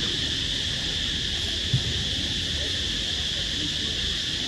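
Steady high-pitched drone of insects, unbroken throughout, over a low rumble, with one short thump a little under two seconds in.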